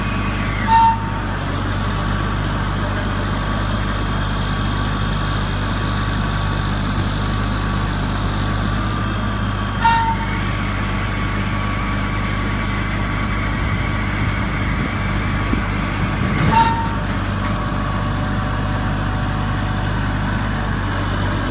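Heavy crane's diesel engine running steadily with a low drone. Three short, sharp sounds cut through it, each with a brief tone: about a second in, about ten seconds in, and near the seventeenth second.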